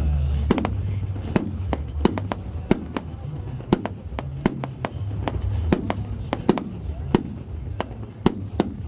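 Fireworks display: a rapid, irregular run of sharp bangs, about two a second, each trailing off in an echo, over a steady low rumble.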